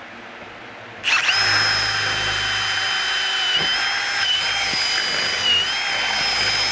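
Milwaukee M18 cordless drill boring a twist bit through a thin metal strip. It starts suddenly about a second in and then runs steadily, with a high, steady whine.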